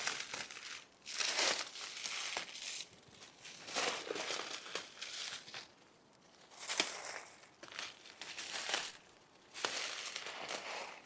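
Footsteps crunching and rustling through dry leaf litter, slow and irregular with short pauses between steps, as a hunter creeps up on a squirrel.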